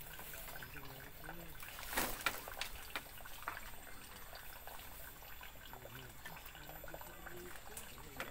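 Water trickling steadily at a fishing pond, with scattered small clicks and a short louder rush of noise about two seconds in.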